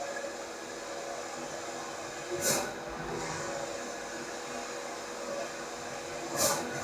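Allwin C512 large-format banner printer running: a steady machine hum, with a brief hiss twice, about four seconds apart.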